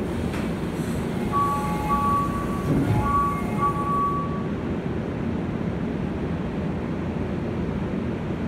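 Two-note electronic door chime sounding repeatedly for about three seconds while the Keio 9000-series train's doors and the platform screen doors slide shut, with a low thud near the middle. Underneath, the steady hum of the stopped train's equipment runs on.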